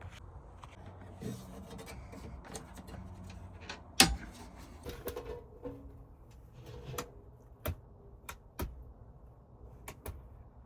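Scattered knocks and clicks over a low hum. The loudest is a sharp knock about four seconds in, and smaller knocks follow every second or so.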